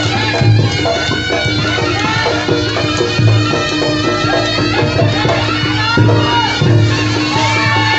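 Live East Javanese jaranan gamelan music: deep drum and gong strokes under a steady drone and a bending, reedy wind melody.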